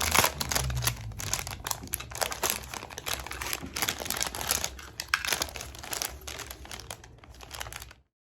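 Plastic packaging crinkling and rustling as it is handled and unwrapped, in a run of irregular crackles that cuts off suddenly near the end.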